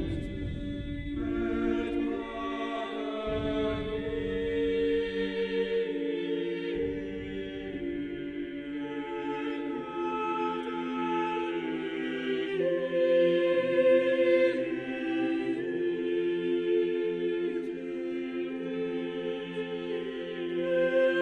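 Choral music: several voices holding long, slow chords that change every few seconds, with a low rumble under it in the first several seconds.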